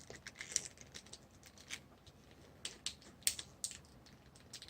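Irregular light clicks and creaks of plastic as a G.I. Joe action figure's head is twisted and pulled at the stiff neck joint.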